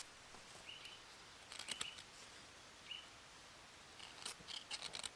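A fire striker being scraped to throw sparks onto a dry cramp ball in a bracken nest: a few separate scraping strikes, then a quicker run of strikes about four seconds in.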